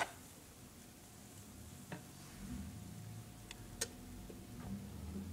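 Mostly quiet: a few faint single clicks of a spoon against a glass pitcher, with a low hum building in the second half.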